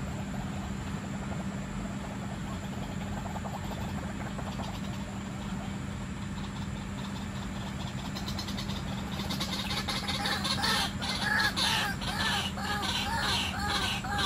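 White-breasted waterhen calling: from about two-thirds of the way in, a loud, rapid series of repeated hooked notes, about three a second. Before that there are fainter calls, and a steady low hum runs underneath throughout.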